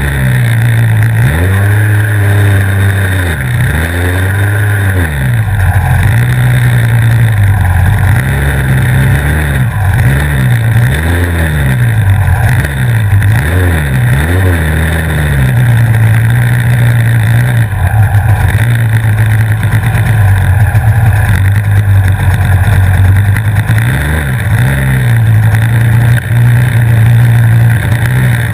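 Superkart's two-stroke engine heard close up from onboard, running at low revs with repeated short throttle blips. The pitch rises and falls several times in the first half and once more near the end.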